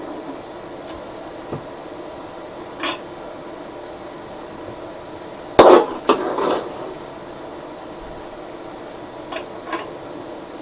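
Metal tools clinking and clattering as a spanner is fetched and handled, over a steady hum. There are a few light clicks and knocks, then a louder clatter about halfway through.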